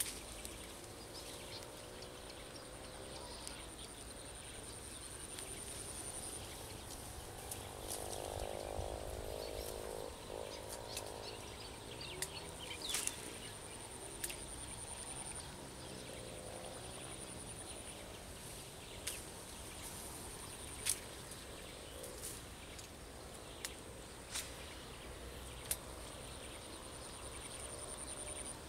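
Pond-side ambience of frogs calling in wavering croaks, with an insect trilling at a high pitch in stretches of several seconds. Sharp clicks sound now and then.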